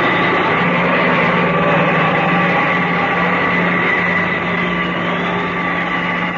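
Radio-drama sound effect of the time machine in flight: a steady electronic hum and rushing whir, with a high tone that slowly wavers up and down.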